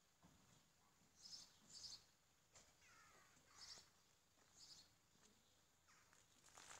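Near silence with a few faint, short high chirps from a small bird, spaced a second or so apart, and one brief falling call about three seconds in.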